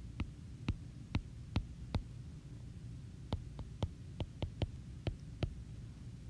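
Stylus tip tapping on a tablet's glass screen while handwriting. It makes about a dozen sharp clicks at uneven intervals, with a pause of about a second near the middle, over a low steady hum.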